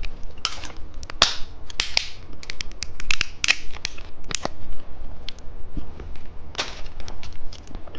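Close-miked, irregular sharp clicks and brief crackly rustles from a burst-filled gummy candy being handled and eaten.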